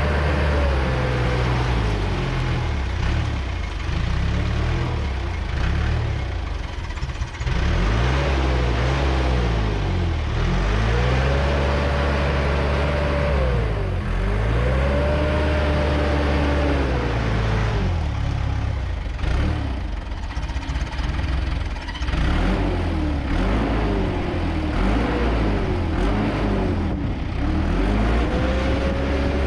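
Bulldozer's diesel engine working, its pitch rising, holding and falling again over and over, every few seconds, as it revs up under load and eases back.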